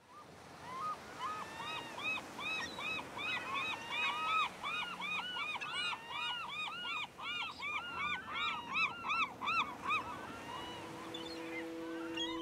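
A flock of birds calling, many short rising-and-falling calls overlapping one another in a busy chorus that thins out near the end. Soft music with held tones fades in under them in the last couple of seconds.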